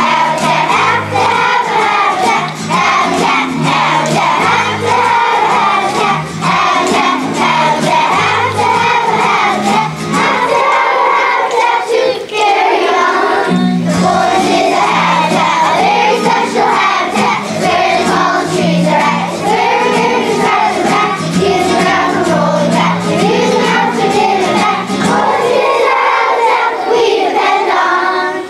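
A large group of elementary-school children singing together, with instrumental accompaniment holding low notes underneath that drop out briefly about halfway through.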